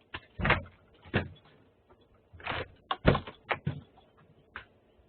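A door being opened and closed: about nine short knocks and clunks at irregular intervals, the loudest a cluster around the middle.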